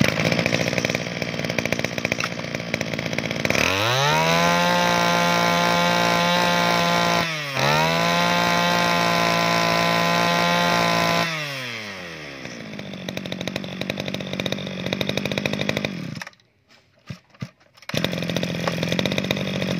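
Iseki TG25 brush cutter's 24cc two-stroke engine, just pull-started, running and revved up to high speed twice with a short dip between, then dropping back to idle. It cuts out about 16 seconds in and is heard running again near the end. It starts readily and runs crisply.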